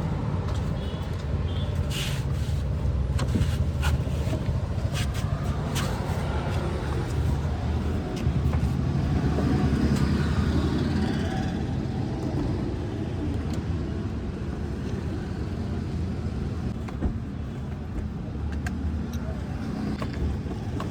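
A motor vehicle running close by: a steady low rumble that swells around the middle, with scattered sharp clicks and knocks, several in the first few seconds.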